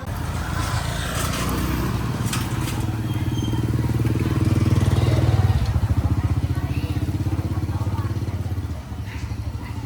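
A motorbike engine running close by, growing louder to a peak about five seconds in and then fading away. A few sharp clicks sound about two seconds in.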